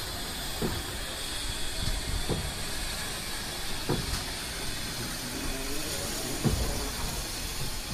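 GWR 2884-class 2-8-0 steam locomotive 3850 moving slowly, with a steady hiss of steam and a dull low thud every second and a half to two seconds.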